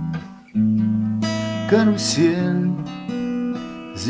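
Acoustic guitar strummed in chords. The ringing chord fades almost out, then a fresh chord is struck about half a second in and more follow. A man sings over it partway through.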